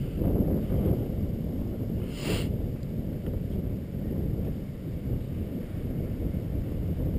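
Wind buffeting the camera microphone, a low, uneven rumble, with a brief hissing rustle a little over two seconds in.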